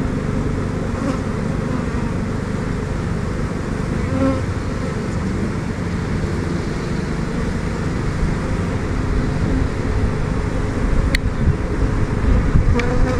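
Honeybees buzzing in a steady, dense hum around an opened hive, with two sharp ticks near the end.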